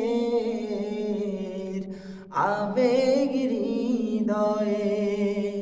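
A man singing a Bengali gojol, an Islamic devotional song, drawing out long ornamented notes with a wavering vibrato. He breaks off briefly a little over two seconds in, then comes back in and holds the next phrase.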